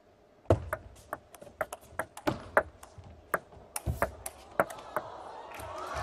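Table tennis rally: a quick run of sharp clicks, the celluloid ball struck by rubber paddles and bouncing on the table, stopping about five seconds in as the point ends. Crowd noise begins to swell near the end.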